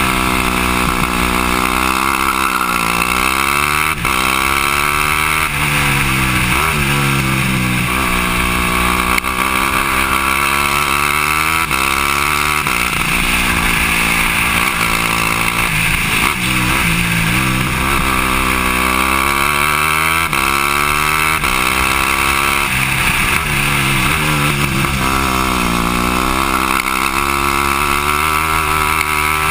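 Yamaha WR250F single-cylinder four-stroke engine driving a go-kart, heard on board. Its revs climb and fall again and again as the kart laps the track.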